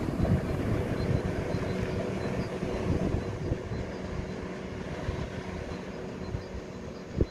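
DH-350 track maintenance vehicle moving away along the line, its low engine and running rumble slowly fading. A single sharp knock comes near the end.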